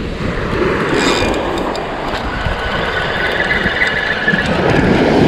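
Spinning reel being cranked to bring in line, giving a high wavering squeal. Surf washing and wind on the microphone run underneath.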